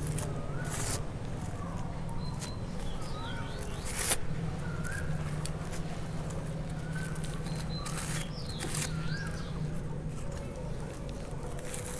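Clear polythene grafting strip crinkling and rustling as it is stretched and wound around a graft union, with a few sharper crinkles, the loudest about four seconds in. Small birds chirp throughout over a steady low hum.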